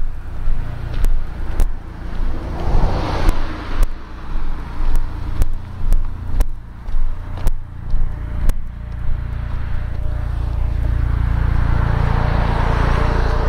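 Outdoor road noise: a car passes early on and another near the end, over a low rumble. Regular knocks about twice a second stop about two-thirds of the way through and give way to a steady low rumble.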